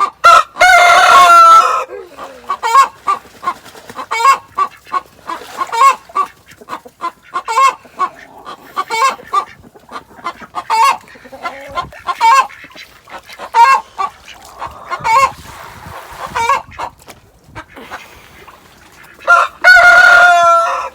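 Domestic hen giving the cackling 'chicken song' (egg song): a steady run of short clucks, broken by a loud drawn-out squawk just after the start and another near the end.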